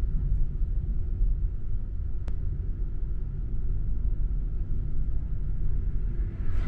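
Steady low road and engine rumble inside a moving car, with a single sharp click about two seconds in.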